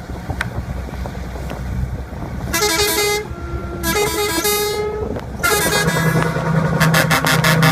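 Vehicle horn being tested over a low engine rumble: two short blasts, each stepping between notes, then from about halfway a longer, louder sounding that breaks into rapid short toots near the end.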